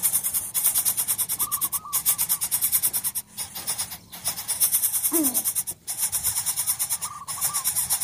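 Greater coucal nestlings begging at the nest: a fast, steady rasping pulse, with a few short calls and a falling cry about five seconds in.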